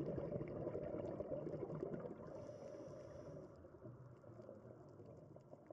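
Underwater ambient noise picked up by a diving camera: a muffled, low water rush with faint ticking, fading out.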